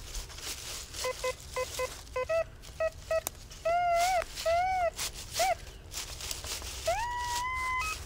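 Metal detector sounding target tones as its coil sweeps over the forest floor, signalling buried metal. First comes a run of short beeps, then several longer tones that rise and fall in pitch, and near the end a tone that glides up and holds.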